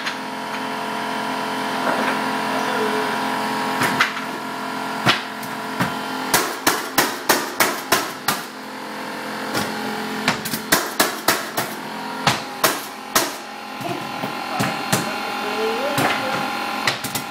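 Mallet striking a pneumatic hardwood flooring nailer, driving fasteners into strip hardwood boards: sharp knocks, some single and some in quick runs of about three a second with short pauses between, over a steady hum.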